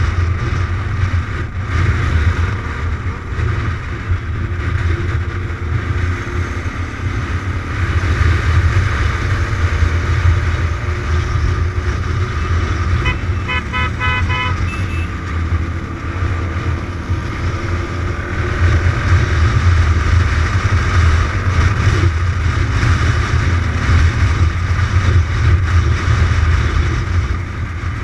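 Kawasaki motorcycle ridden at road speed: engine running under heavy wind buffeting on the bike-mounted microphone. About halfway through, a horn sounds in a quick run of short toots.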